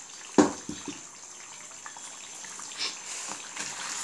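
Duck curry bubbling in a pot of oily gravy, a steady crackle and trickle of simmering. One sharp knock about half a second in is the loudest sound.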